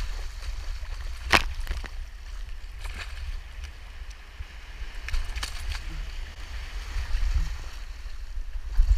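Shallow surf washing around the angler's feet, with wind rumbling on the microphone and a few sharp knocks, the loudest about a second and a half in.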